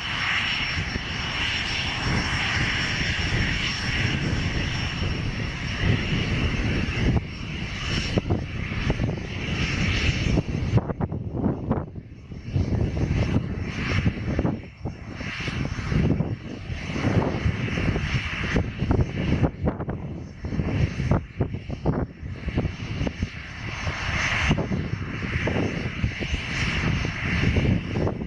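Aircraft engines running, with a high whine over the first ten seconds that then fades, while gusty wind buffets the microphone throughout.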